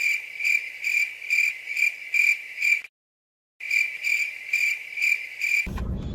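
Cricket chirping, a high steady trill pulsing about two to three times a second. It drops out completely for under a second about halfway through, then carries on until car cabin rumble comes back near the end.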